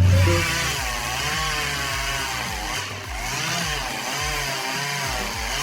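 Chainsaw running, its engine pitch wavering up and down as it works.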